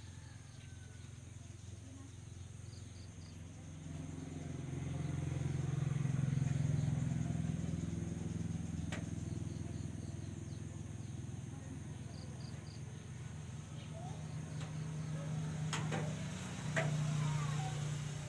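A vehicle engine running with a steady low hum that grows louder about four seconds in and then eases off, swelling again near the end. A few sharp clicks or knocks come late on.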